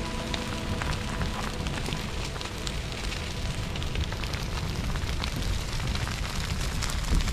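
Dry grass and scrub burning in a running bushfire, crackling and popping irregularly over a steady low rumble.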